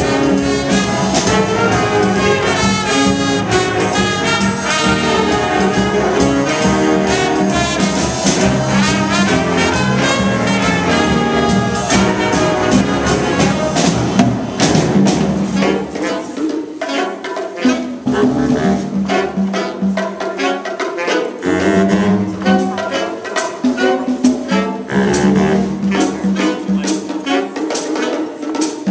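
Jazz band playing: trumpets and saxophones over a steady beat. A little over halfway through, the low bass end drops away and the playing becomes lighter and more broken up.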